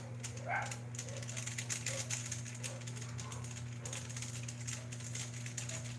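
Mushrooms and fish sizzling in a pan on a gas burner, a steady stream of fine irregular crackles and pops over a constant low hum.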